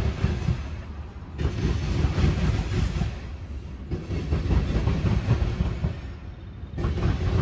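Freight cars of a Union Pacific mixed freight train rolling by, wheels rumbling and clattering on the rails, the sound swelling and fading about every two and a half seconds.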